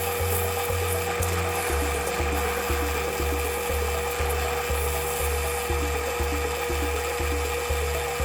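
A power tool grinding steel with a steady rasp and a constant tone, under background music with a regular bass pulse of about two notes a second.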